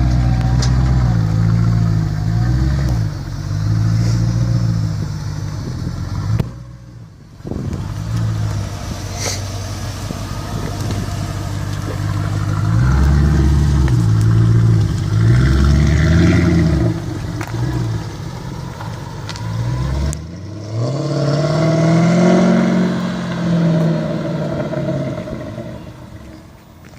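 Mercedes C55 AMG's V8 engine, still cold just after a cold start, idling and revved up and back down several times.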